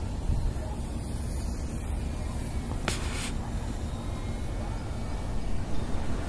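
Gusty wind buffeting the microphone, a steady low rumble, with one short click about three seconds in.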